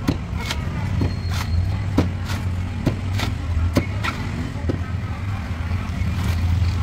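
Knife chopping into a young coconut, sharp strikes about twice a second, over a steady low rumble.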